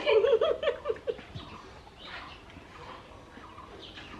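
A short, pulsed burst of stifled laughter through a mouthful of food, about a second long at the start, then only faint sounds.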